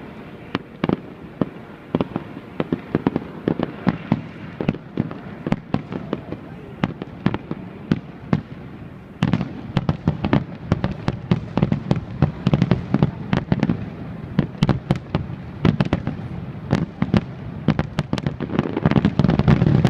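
Fireworks display: aerial shells bursting in a rapid run of sharp bangs over a continuous rumble. The bangs come thicker and louder about nine seconds in and build to a dense volley near the end.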